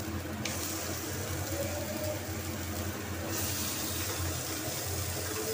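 Raw chicken pieces sizzling as they are tipped into hot oil and fried spice paste in a wok, the hiss starting about half a second in and growing stronger past the middle, over a steady low hum.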